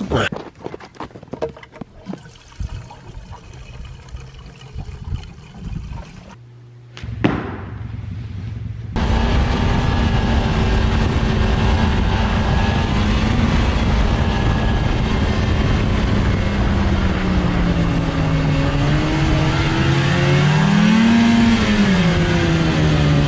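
A few seconds of clattering and knocks, then an engine suddenly running steadily, its pitch rising once and falling back near the end.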